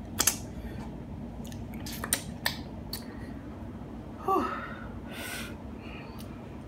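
Close mouth sounds of a person eating tacos: several sharp, wet lip smacks as fingers are licked clean, a short 'mm' that falls in pitch about four seconds in, and a couple of breathy puffs.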